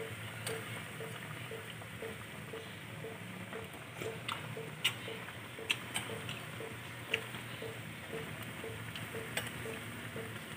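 A pot of fish paksiw boiling on a gas stove: steady bubbling of the vinegar broth with scattered sharp pops and clicks.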